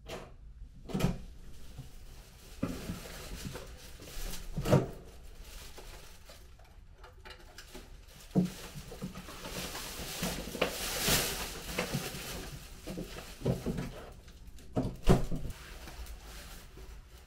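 Someone coming in through a dorm room's front door with plastic shopping bags: the door being handled, a few separate knocks and thumps, and plastic bags rustling, with the longest rustle about ten to twelve seconds in.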